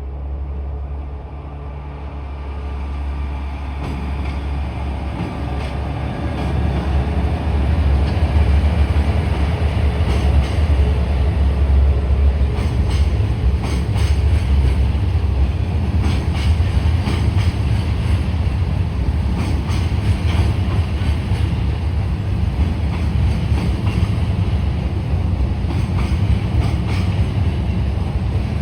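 Diesel-hauled freight train passing. The low rumble of the locomotive and wagons builds over the first several seconds and then stays loud, with the wheels clicking over rail joints.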